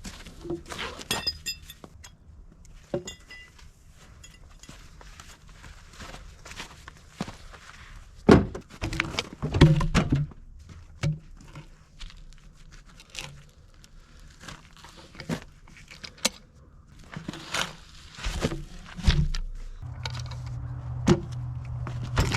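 Irregular knocks, thuds and clanks with footsteps as logging gear and logs are handled; about 20 s in, an engine starts running steadily, likely the four-wheeler that tows the skidding arch.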